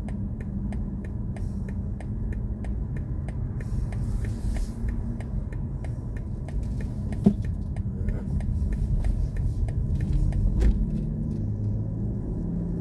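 Low, steady road and tyre rumble of a BMW i4 M50 electric car driving, with no engine note. A run of light, evenly spaced ticks, about three a second, sounds in the first few seconds, and a single sharp knock comes about seven seconds in.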